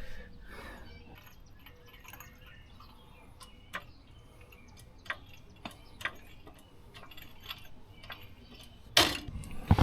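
Motorcycle jack being worked to lift the bike: faint, irregular metallic clicks and ticks every half second to a second or so, with one louder knock near the end.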